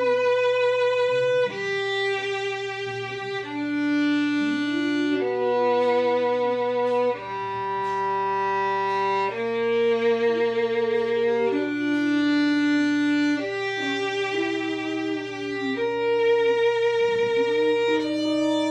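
Violin playing a slow melody of long held notes, each changing to the next every one to two seconds.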